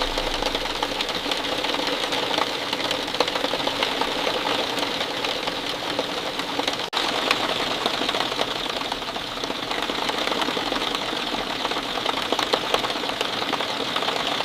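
Steady rain falling, a dense patter of many small drops, with a split-second dropout about seven seconds in.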